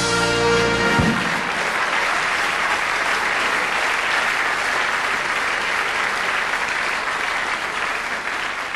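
Audience applauding steadily, with a short burst of band music in the first second.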